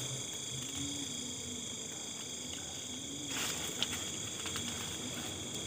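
Crickets and other insects chirping in a steady, high-pitched chorus. A brief soft rustle about three seconds in.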